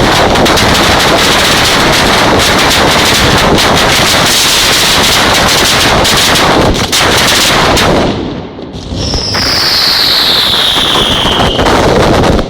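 Neapolitan ground firework battery (batteria napoletana) going off as a dense, unbroken chain of very loud rapid bangs. The bangs thin out briefly about eight seconds in, then come back, with a high whistle falling in pitch near the end before the firing stops abruptly.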